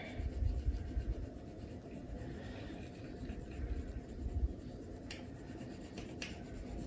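Wax crayons scratching and rubbing on drawing paper as two people color, with a few light taps near the end.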